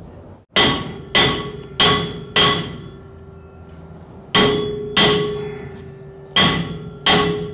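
Hammer blows on a cast-iron rear brake drum, each strike ringing like a bell. There are eight: four in quick succession, then a pause, then two pairs. The drum is being knocked on to work a stuck drum loose.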